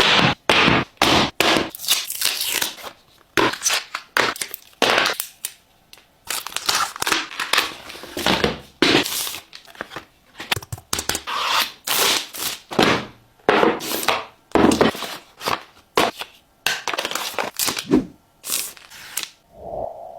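Packaging of a tablet being torn open and handled: irregular short bursts of tearing and crinkling, one after another.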